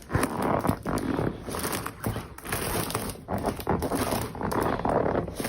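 Havaianas rubber boots rubbing and squeaking in irregular bursts.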